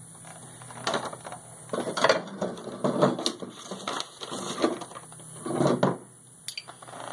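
Irregular clatter and scraping of hand work around a tractor's exhaust muffler mount, in separate bursts about a second apart.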